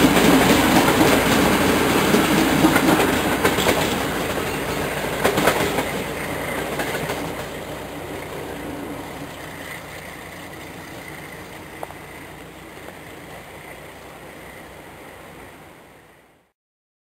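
Diesel-hauled passenger train (SU45 locomotive and coaches) running away into the distance, its wheels clattering over the rail joints with a few sharp knocks in the first few seconds. The sound fades steadily, then cuts off abruptly near the end.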